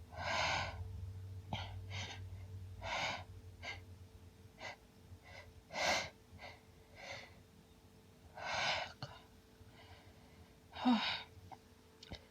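A woman's hay-fever sneezing fit: a run of about five sneezes two to three seconds apart, with sharp breaths and sniffs between them.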